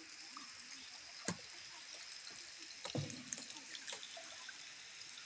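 Water dripping and splashing in a cave: a few separate sharp drips over a faint steady hiss, the loudest about three seconds in.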